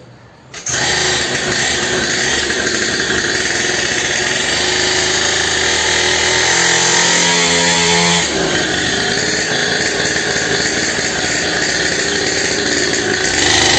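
Small 49cc two-stroke engine of a kids' mini dirt bike starting about half a second in and running steadily. Its note shifts briefly a little past the middle.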